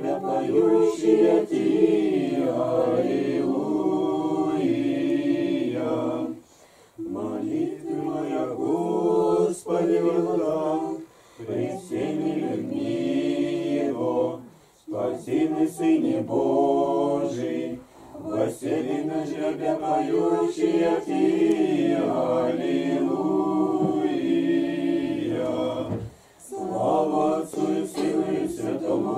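A small group of men and women singing Orthodox church chant a cappella, in phrases of several seconds broken by short pauses for breath.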